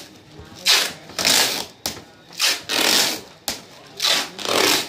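Adhesive tape pulled off its roll in rasping strokes, binding a plastic-wrapped shroud: three pairs, each a short pull followed by a longer one, about every second and a half.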